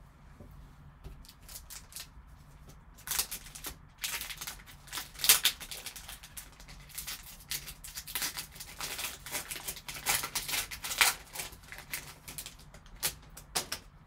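Foil wrapper of a trading-card pack crinkling and tearing as it is pulled open by hand, a dense run of sharp crackles starting about three seconds in, loudest about five seconds in.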